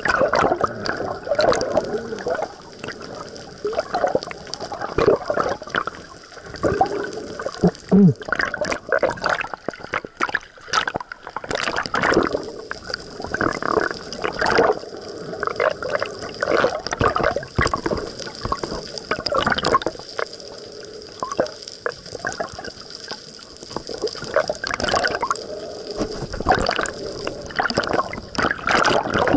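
Water sloshing, gurgling and bubbling around a camera held just under the surface while snorkeling, with irregular clicks and crackles that rise and fall as it moves through the water.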